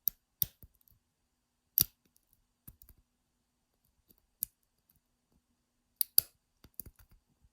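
Irregular sharp metal clicks, about nine of them: a lock pick and tension wrench working the pins of a five-pin ISEO euro cylinder lock under heavy tension.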